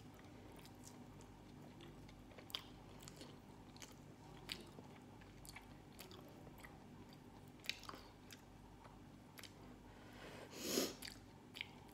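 Close-up mouth sounds of a person chewing food, with scattered faint wet clicks and smacks, and one louder sound lasting about half a second near the end.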